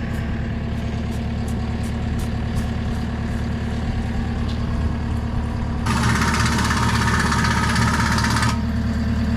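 Cat 318B excavator's diesel engine idling steadily, with a loud hiss lasting about two and a half seconds starting about six seconds in.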